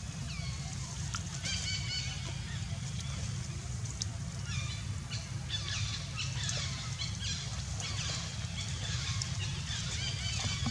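Animals in the tree canopy giving many short, high-pitched calls that fall in pitch, overlapping in quick runs, over a steady low rumble.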